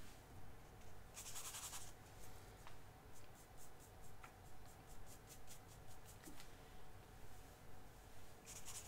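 A paintbrush scratching and dabbing gouache onto black watercolor paper in a run of short, faint strokes. A brighter hissing stroke comes about a second in and another near the end.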